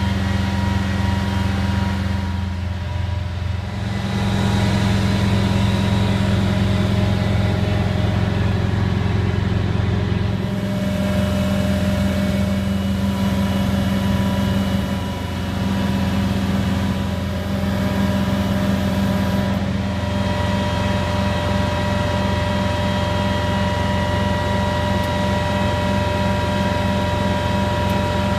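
The Detroit diesel engine of a 1991 Pierce Arrow aerial ladder truck runs steadily while the ladder is up, a deep drone with a thin steady whine above it. The level dips briefly twice.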